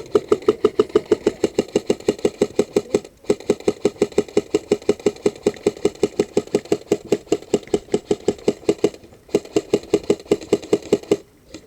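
Airsoft gun firing full auto: long strings of rapid, evenly spaced shots, each with the buzzing crack of the gun's gearbox. The strings break off briefly about three seconds in and again about nine seconds in.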